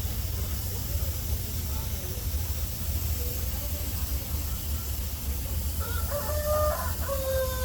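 A rooster crowing once near the end, its call ending in a long, slightly falling note, over a steady low rumble.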